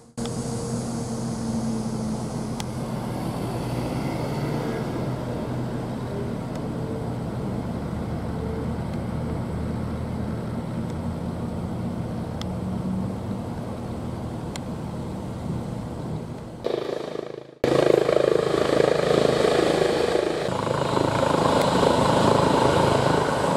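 Eurocopter EC135 (Airbus H135) twin-turbine air ambulance helicopter running on the ground, a steady turbine and rotor hum with a few held tones. After a cut about three-quarters of the way through it becomes louder.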